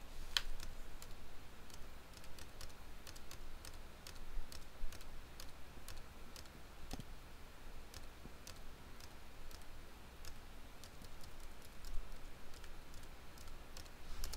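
Computer keyboard keys being pressed: faint, light clicks at an uneven pace, several a second at times.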